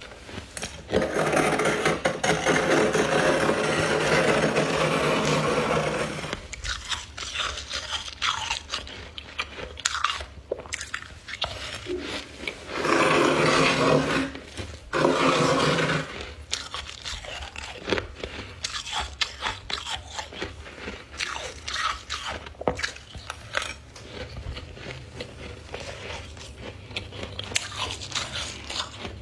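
Close-up crunching and chewing of chunks of white freezer frost ice. Long grinding crunches come about a second in and again around the middle, with many short crisp crunches between them.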